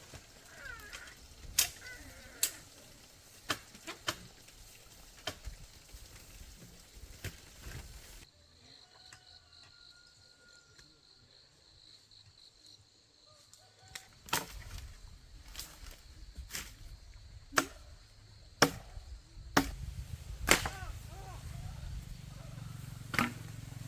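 A series of sharp knocks or chops at irregular intervals, with a quieter stretch in the middle and a low rumble rising near the end.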